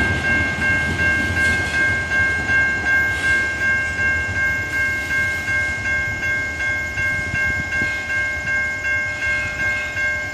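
Grade-crossing warning bell ringing steadily, a little over two strikes a second, as the last cars of a freight train roll away; the low rumble of the cars fades in the first second or so.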